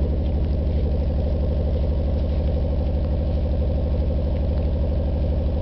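Nissan RB20DET turbocharged straight-six idling steadily with an uneven, pulsing beat, which the owner takes for a bad misfire.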